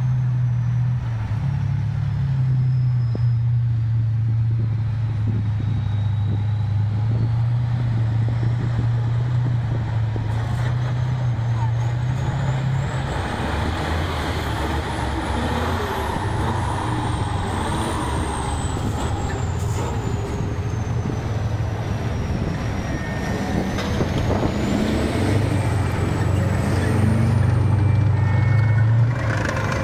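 Heavy diesel engine of an off-road race truck running hard as it drives over rough dirt terrain, a steady low drone with a thin whistle rising and falling above it. Near the end a tank drives past on the dirt.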